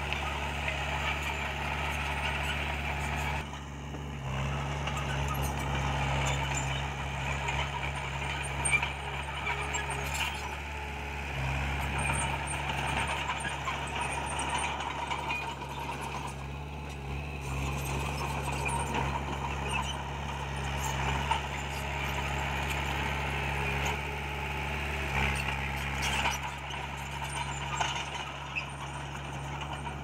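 Small Komatsu crawler bulldozer's diesel engine running steadily under load, with its steel tracks clanking and rattling as it moves.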